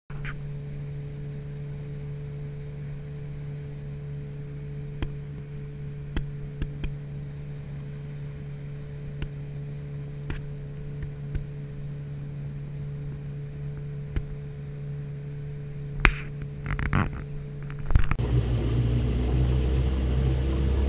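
Boat motor running at a steady low idle hum, with scattered small knocks and a sharp loud knock about 16 seconds in. About 18 seconds in the motor is opened up and runs louder and rougher.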